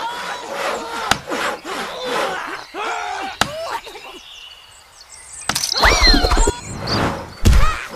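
Cartoon sound effects: high warbling squeaks and chatter, a short lull, then a loud crashing and breaking clatter with whistling glides near the end.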